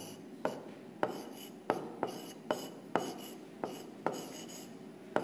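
Stylus tapping and scratching on the glass of an interactive touchscreen display while handwriting: a string of sharp taps about every half second, with faint scratching between them.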